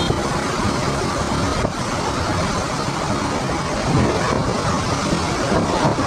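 Steady wind rush buffeting the microphone of a moving motorcycle, with the motorcycle's running and road noise underneath.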